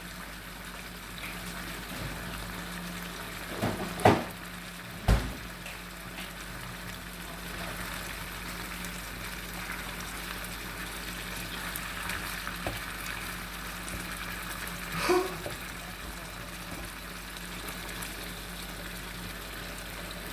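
Chicken and tomato sauce cooking in a pan, a steady bubbling and sizzling hiss, with a few sharp knocks of a utensil against the pan around four and five seconds in and once more near fifteen seconds.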